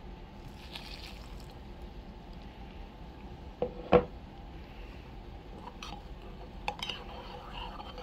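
Two sharp clinks of hard objects close together about four seconds in, the second ringing briefly, then a few lighter taps over a steady background hiss.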